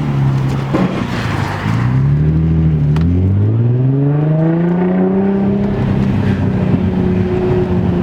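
Infiniti G35 coupe's VQ V6 engine pulling the car along: its pitch climbs, drops briefly about three seconds in, climbs again, then holds steady.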